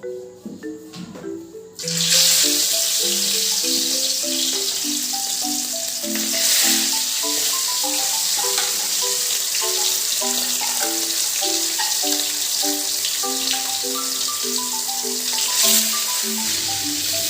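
Background music with a marimba-like melody of short notes. About two seconds in, a loud, steady cooking hiss starts under it and keeps going.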